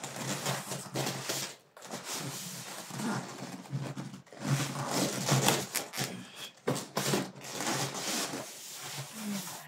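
Cardboard box and plastic packing rubbing, scraping and rustling in irregular bursts as a boxed oven air fryer is tugged out of it.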